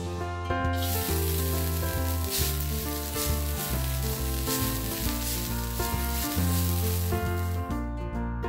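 Fresh coriander leaves sizzling as they fry in hot oil in a kadhai, stirred with a wooden spatula; the sizzle starts about a second in and dies away near the end. Background music plays throughout.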